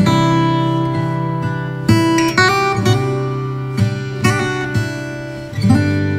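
Background music: an acoustic guitar strumming chords, with a new chord struck every second or two.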